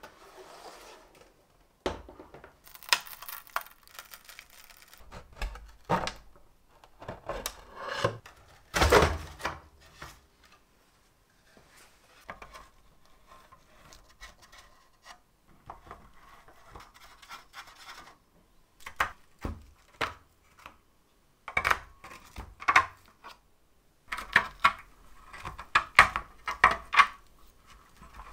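Wooden case and small metal parts of an antique mechanical horse-racing game being handled and taken apart by hand: irregular scrapes, rubs and clicks in clusters with short pauses, the loudest scrape about nine seconds in.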